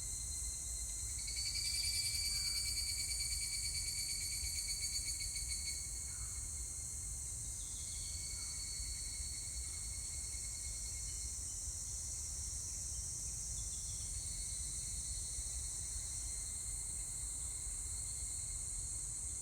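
Higurashi (evening cicadas) singing. A louder, rapidly pulsing trill stands out from about a second and a half in to about six seconds, over a steady high-pitched insect drone, with fainter trills after that and a low rumble underneath.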